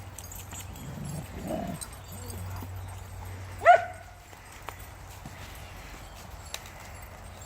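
Dogs at play: a lower, rough dog vocalisation about a second in, then a single sharp, high-pitched bark a little later, the loudest sound. Faint scattered clicks and a steady low hum run underneath.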